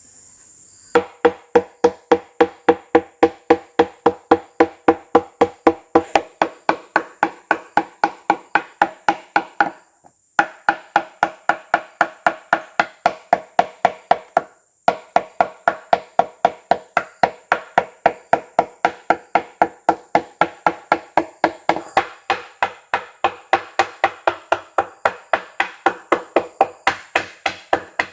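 Rapid, evenly spaced chopping blows on wood, about three a second, each with a short hollow ring. The run breaks off briefly twice. A faint steady high insect drone runs behind.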